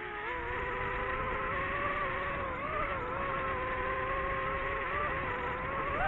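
Quadcopter drone's propellers humming steadily, their pitch wavering a little as the drone manoeuvres, over a low wind rumble.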